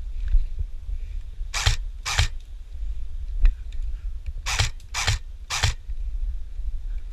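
Airsoft gun firing five sharp single shots: two about half a second apart, then three in quick succession a couple of seconds later. Wind rumbles on the microphone throughout.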